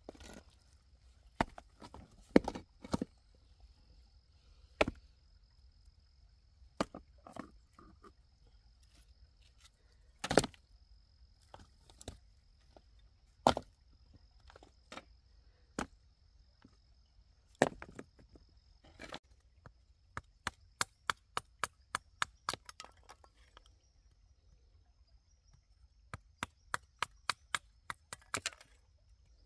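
Wood being chopped: scattered sharp knocks, then two runs of quick light taps, about four or five a second, in the second half. A steady high insect whine sits underneath.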